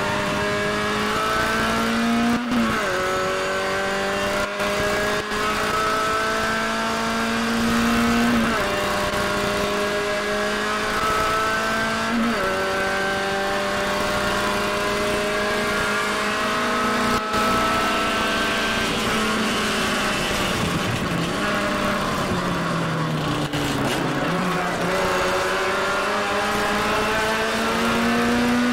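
Classic Mini race car's four-cylinder engine, heard from inside the cockpit, pulling hard through the gears. The pitch climbs and drops sharply at three upshifts in the first twelve seconds, winds down as the driver backs off about two-thirds of the way through, then climbs again near the end.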